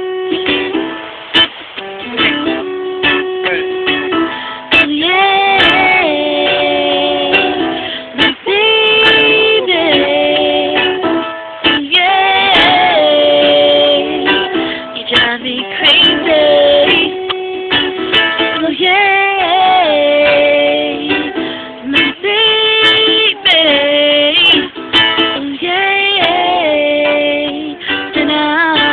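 Live acoustic jam music: strummed guitar with a melody of held notes that slide from one pitch to the next over it.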